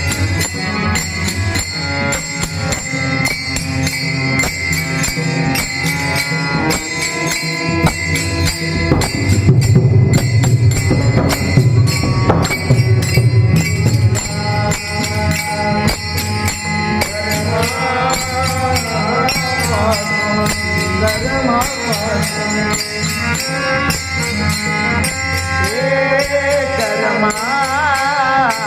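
Bhajan music: fast, even jingling percussion and drum over held tones, with the drumming loudest about a third of the way in. From about the middle, a voice sings long, wavering, ornamented notes over the accompaniment.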